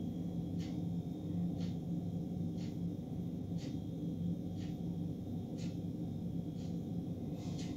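Steady low hum of a commercial kitchen, with a faint, regular click about once a second.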